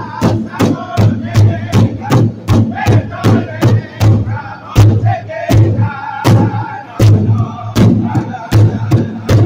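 A powwow drum group: several men striking a large hide-covered powwow drum in unison, about three beats a second, while singing together over the beat.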